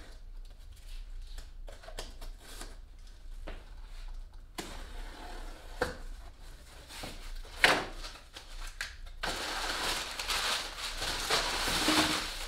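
Cardboard shipping box being opened by hand: scattered small taps and scrapes, one sharp knock a bit past halfway, then brown packing paper crinkling and rustling loudly in the last few seconds as it is pulled out of the box.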